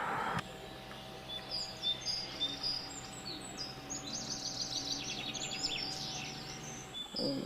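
Small birds chirping and twittering in repeated short high calls and quick falling notes, over a faint steady hum that stops near the end.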